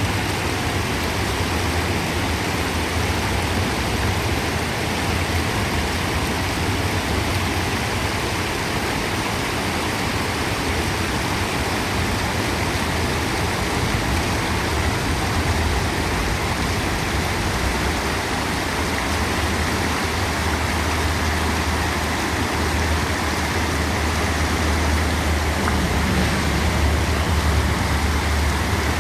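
A river rushing steadily, with a constant low rumble beneath the noise of flowing water.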